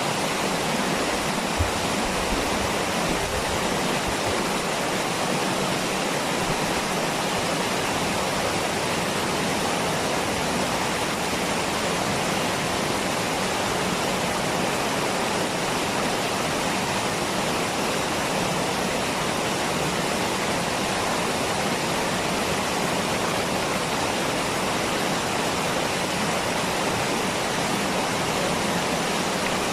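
Waterfall: water falling and rushing in a steady, unbroken wash, with one brief low bump about a second and a half in.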